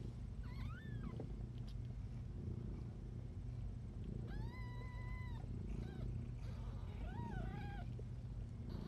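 Cats mewing: three high-pitched mews, a short rising-and-falling one, a long level one held about a second, and a wavering one near the end, over a steady low rumble.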